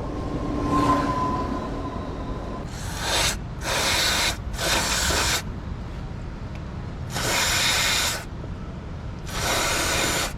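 Aerosol hardware parts cleaner sprayed onto an oil-soiled electrical connector in five short hissing bursts, each about a second long. The spray is washing the oil off the connector.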